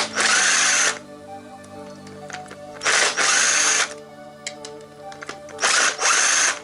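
A power tool run in short bursts of about a second, three times, over background music.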